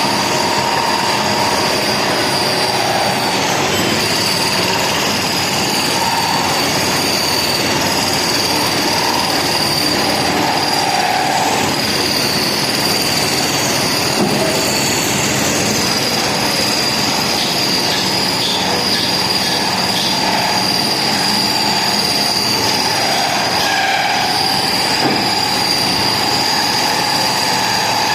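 Metal-cutting machine tool, most likely a planer-miller machining a steel bed face, running steadily with a continuous high-pitched metal-on-metal squeal over a dense grinding noise.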